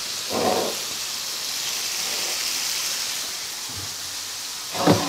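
Sliced chicken breast sizzling steadily as it fries in a little oil in a frying pan, with a brief knock just after the start and another near the end.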